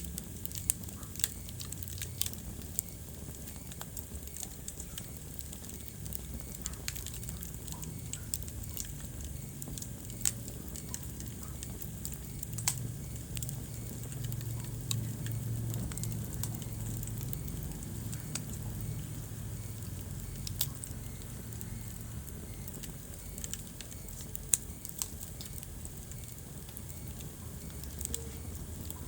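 Wood fire burning in a fireplace: irregular sharp crackles and pops over a low, steady rumble of the flames.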